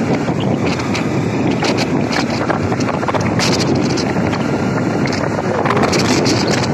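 Wind rushing and buffeting over the microphone on a moving motorcycle, with the bike's running engine and road noise beneath it.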